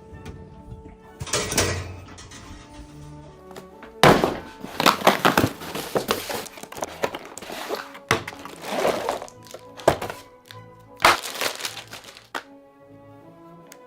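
Background music with held tones, broken by several loud bursts of knocking and crackling noise, the longest running for about five seconds in the middle.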